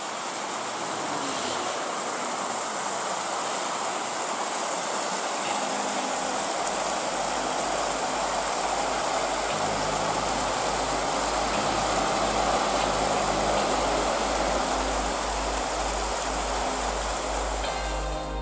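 Bus engine running with a low, pulsing rumble that comes in about six seconds in as the bus pulls up, over a steady rushing noise.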